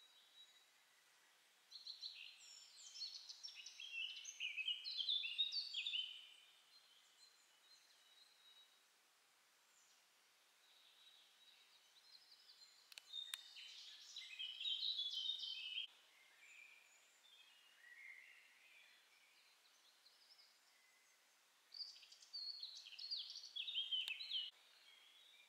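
A songbird singing in woodland: three phrases of quick, high, chirping notes, each a few seconds long and tumbling downward in pitch, with roughly six to eight seconds of quiet between them.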